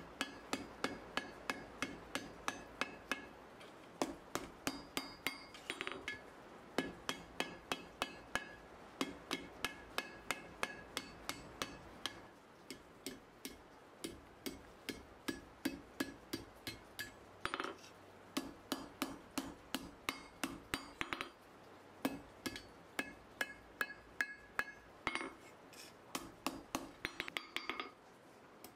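Hand hammer striking red-hot mild steel on an anvil, forging a bend into the bar. The blows come steadily at about two to three a second, in runs with short pauses, and each blow rings briefly.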